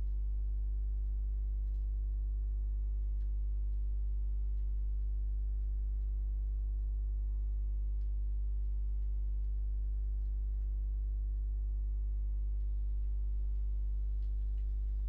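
Steady low electrical hum at about 50 Hz with its overtones, a mains hum picked up by the recording, with a few faint clicks.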